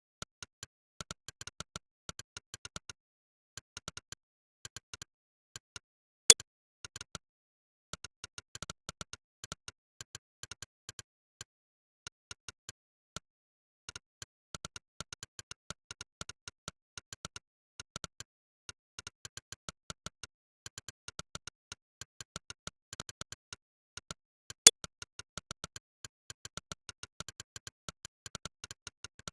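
Monkeytype's synthetic "click" keypress sound, one click per key struck, in fast runs of typing broken by short pauses. Two single clicks about 6 and 25 seconds in are much louder than the rest.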